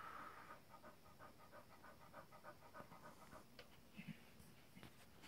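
A faint, rapid panting from an English bull terrier in labour, about five breaths a second. It stops about three and a half seconds in, and a short soft low sound follows.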